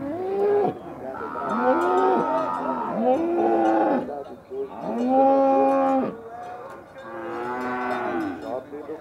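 Several cattle in a pen mooing: about five long moos from more than one animal, some overlapping, each rising and then falling in pitch, the loudest a little past the middle.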